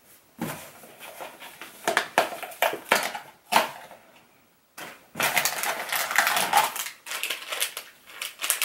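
Small crinkly packaging from a toy blind box being handled and opened: crackling, rustling bursts, a short pause a little past the middle, then a longer, denser stretch of crinkling.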